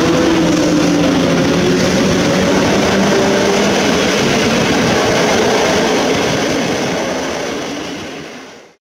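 A PKP EP07 electric locomotive and its passenger coaches running past: a loud, steady rumble of wheels on rail, with a tone that falls slightly in pitch in the first few seconds as the locomotive goes by. The noise fades as the last coach passes and cuts off suddenly near the end.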